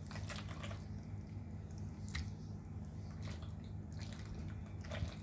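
Soft, wet squishes and a few light taps as spoonfuls of cheesy ricotta-coated ziti are dropped into a baking dish, over a steady low hum.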